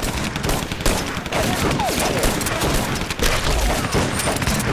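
Dense battle gunfire: many rifle and pistol shots overlapping without a break, like a sustained exchange of fire.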